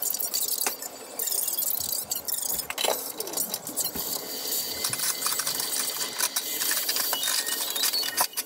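Metal utensils clink a few times against an aluminium stock pot, then the pot of broth keeps bubbling at a rolling boil as a dense, hissy patter of tiny pops.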